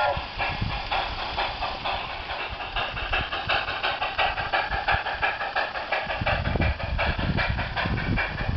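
Large-scale garden model train running, with rapid, evenly spaced hissing chuffs, the steam-locomotive sound its sound unit plays, just after its whistle stops. A low rumble joins about six seconds in.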